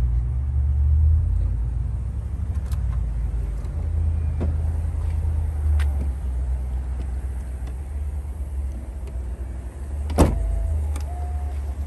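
A steady low rumble, with a single sharp thump about ten seconds in as the Mercedes-Benz SL 450's trunk lid is shut.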